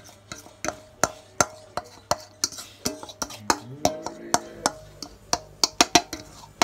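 A utensil knocking and scraping against a metal mixing bowl as brownie batter is scraped out into cake pans: a quick, irregular run of sharp clicks, about two to three a second.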